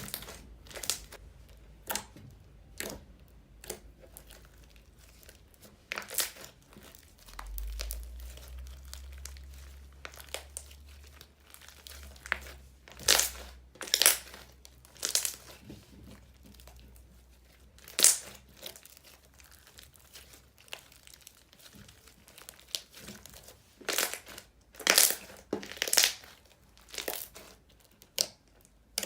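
Slime being squeezed, stretched and pressed by hand, giving irregular wet pops, clicks and crinkly crackles, several loud ones clustered together.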